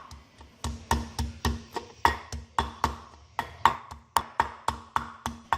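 Pestle pounding garlic and shallots in a mortar: a rapid run of sharp knocks, about four a second, as the garlic and shallots are crushed to a paste.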